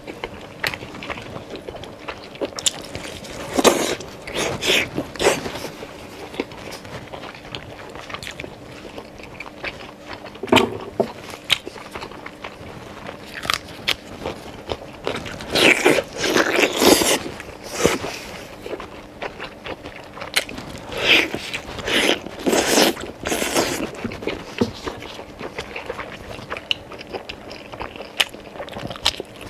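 Eating sounds: braised beef rib meat torn from the bone, bitten and chewed in wet, crunchy bursts separated by quieter stretches.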